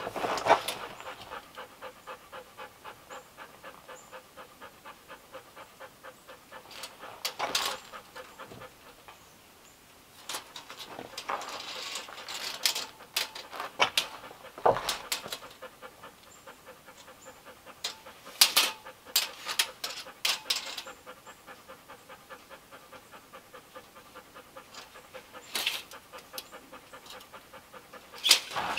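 Golden retriever panting in a steady, fast rhythm, with a few brief sharp clicks and knocks.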